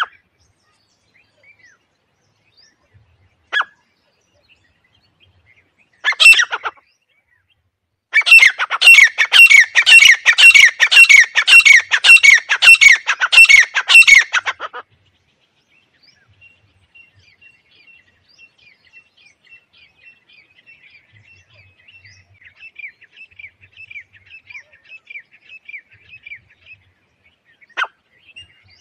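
Francolin (teetar) calling: after one short call, a loud run of about a dozen harsh, repeated notes, each sweeping downward, at about two a second that lasts some six seconds. Fainter rapid chirping follows, and one short note comes near the end.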